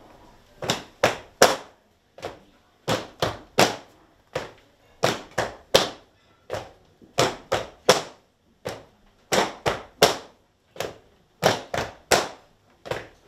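Dancers' hard-soled shoes stamping on a tiled floor in a Croatian folk circle dance, without music: a repeating pattern of three quick stamps and then a single one, about every two seconds.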